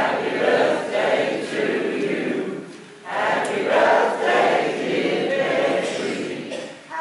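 A roomful of people singing together in unison, in phrases of about three seconds with a short breath between them.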